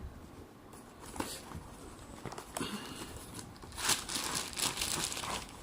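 Packaging crinkling and rustling as a newly unboxed selfie stick is handled and unwrapped, in irregular bursts that grow busier and louder in the second half.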